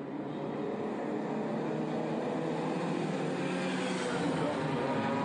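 Engines of several pre-war racing cars approaching at speed, growing steadily louder.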